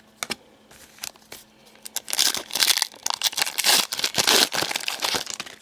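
Hands handling trading cards close to the microphone: a few light clicks, then from about two seconds in a dense stretch of crinkling and rustling lasting about three seconds.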